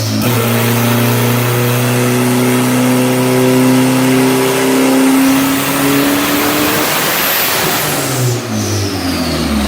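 Car engine on a chassis dynamometer doing a full-throttle pull, its pitch climbing slowly. About seven seconds in the throttle closes and the revs fall away, and it picks up again near the end.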